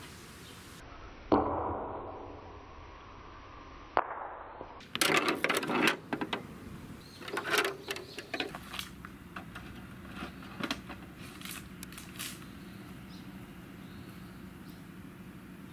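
Small toy ball bouncing and rolling on pavement and asphalt. A single sharp knock with a ringing tail comes about a second in, then clusters of rapid bounces and rattling clicks that thin out.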